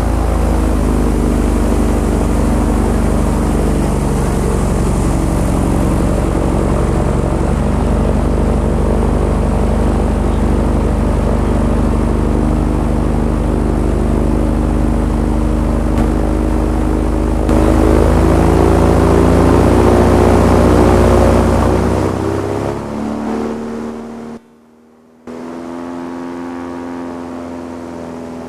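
Airboat engine and propeller running steadily under way. It grows louder about two-thirds of the way through, then eases off. After a brief cut-out it runs on more quietly.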